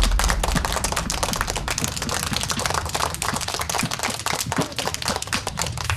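A group of children clapping their hands together, a fast, uneven patter of many claps like applause.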